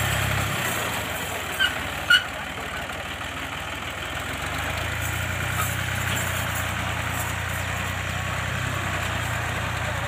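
Tractor engine idling steadily. Its low hum drops away about half a second in and comes back after about four seconds, and there are two short sharp knocks at about one and a half and two seconds.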